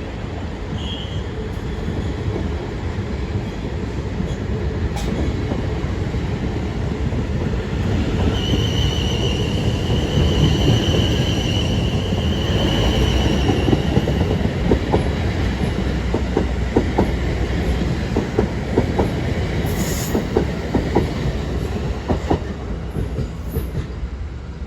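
Two coupled Class 444 Desiro electric multiple units pulling out and passing: a steady rumble that grows louder, a high wheel squeal for several seconds in the middle, then a run of rapid clicks as the wheels pass over the track.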